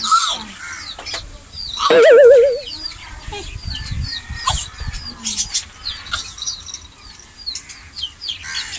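Young chickens peeping over and over, short high falling chirps. About two seconds in comes a loud, quavering call lasting under a second.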